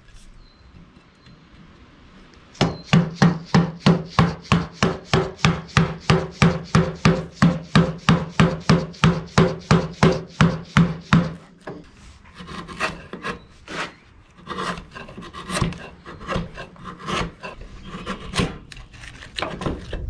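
Wide framing chisel driven by hand into the waste of a chain-cut mortise in a timber beam. A few seconds in comes a quick, even run of wooden knocks, about three to four a second; after that come slower, irregular scrapes and knocks as the chips are pared and levered out.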